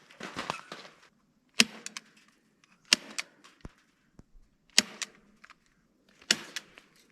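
Four sharp, single strikes about a second and a half apart, each followed by a few lighter clicks and knocks: fastening work on a wooden fence frame. A short spell of rustling comes first.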